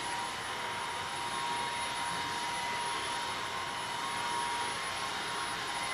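Tesvor R5 cordless wet-dry floor scrubber running steadily, a hiss of suction and roller with a thin steady whine, as it scrubs up wet dirt and water from a hard floor.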